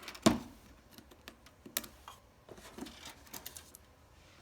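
Irregular clicks and light plastic knocks from a 3D printer's touch panel being taken out and handled, with one sharp louder click about a quarter second in and smaller clicks through the rest.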